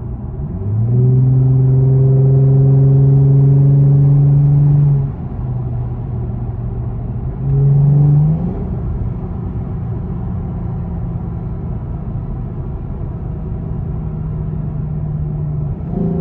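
Lexus GS 350's 3.5-litre V6 through a Borla S-Type axle-back exhaust, heard from inside the cabin while driving. The engine note climbs about a second in and holds loud for about four seconds. It drops back, surges briefly again near eight seconds, then settles into a steadier, quieter note.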